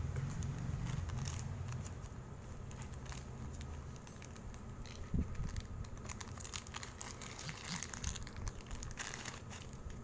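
Small clear plastic bag crinkling and crackling as hands work it open to pull out a spare pair of shoelaces. The crackling grows denser in the second half.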